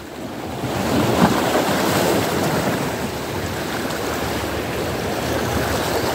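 Sea surf washing against the shore. It swells about a second in, then holds as a steady wash.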